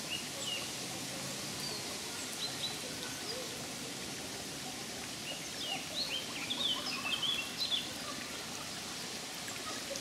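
Songbirds chirping and whistling in short, scattered phrases, busiest a little past halfway, over the steady faint trickle of a small forest brook.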